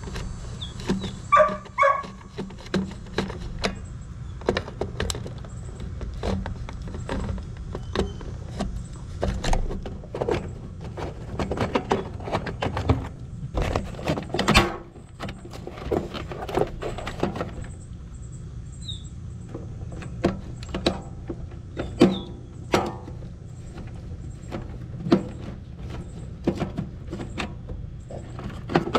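A dog barking now and then over scattered clicks and knocks from hand work on the air-conditioning unit's wiring and panel. A steady low hum runs underneath.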